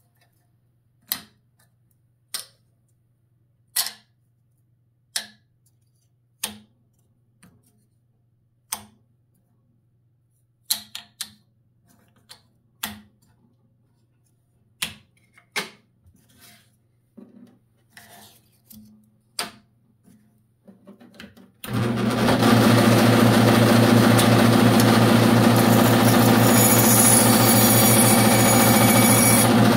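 Small plywood squares clacking as they are set down and stacked on a bandsaw table, one sharp knock at a time, at first about every second and a half, then more irregular. About two-thirds of the way in, the bandsaw is suddenly running loud with a steady motor hum as a square is cut.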